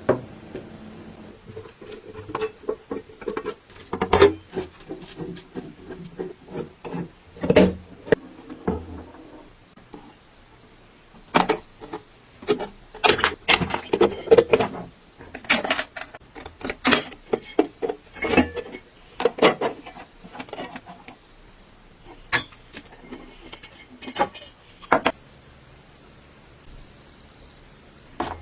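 Irregular clicks, taps and knocks of small metal and wooden clock parts being handled and set down, some in quick clusters.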